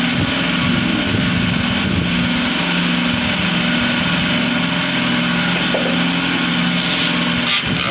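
Jumbo cotton candy machine running, its motor-driven spinning head giving a steady hum over an even rushing noise.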